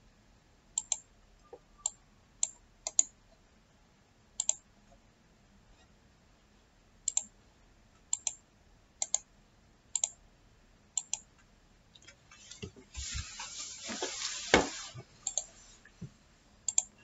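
Computer mouse clicks, sharp and separate, some in quick pairs, as a form is filled in. Near the end comes a few seconds of rustling noise with a single thump.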